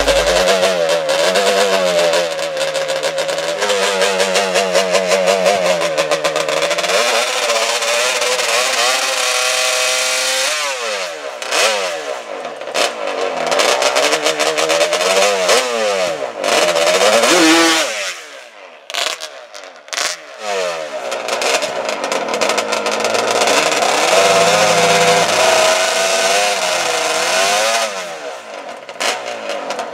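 Small engine of a mini drag-racing trike revving hard over and over, its pitch rising and falling, while the rear slick spins in a smoky burnout. The engine drops back briefly twice, about two-thirds through and near the end.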